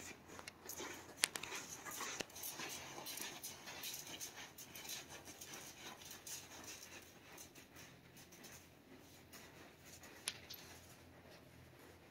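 Faint scuffing and shuffling steps of a horse and its handler walking through deep arena sand, with a few sharp clicks about a second in and again near the end.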